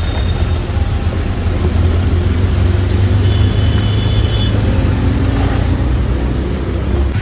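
Road traffic: motor vehicles running with a steady low rumble and an even hiss, with a few brief high tones about halfway through.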